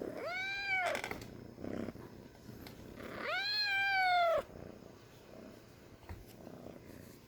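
Kitten meowing twice: two high, drawn-out calls that rise and fall in pitch, about three seconds apart, the second longer and louder.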